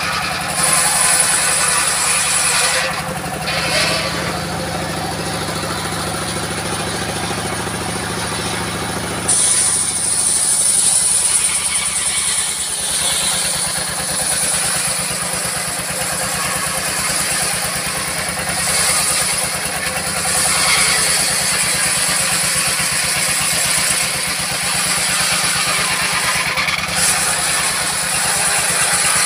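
Old stationary diesel engine running steadily, driving a circular sawmill blade, with a high steady whine over the engine's firing. The high whine drops away briefly twice and grows louder about nine seconds in.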